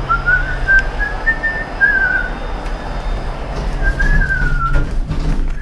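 A person whistling a wandering tune in short, wavering phrases, over a steady low hum.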